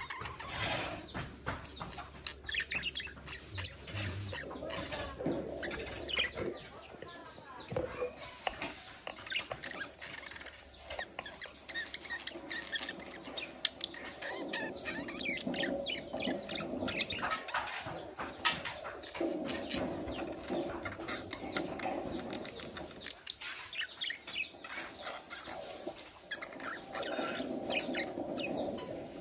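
Budgerigars chattering and warbling: a continuous stream of quick chirps, clicks and squeaky notes, with brief lulls.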